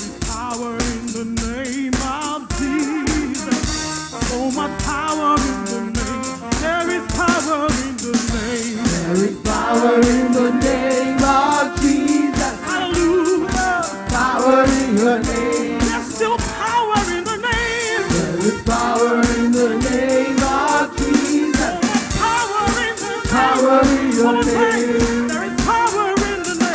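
Gospel worship band music with a steady drum-kit beat and a singing voice.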